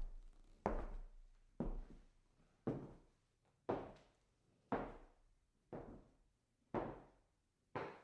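Distant footsteps on a wooden floor: eight slow, even steps about one a second, each a dull knock with a short echo, growing slightly fainter.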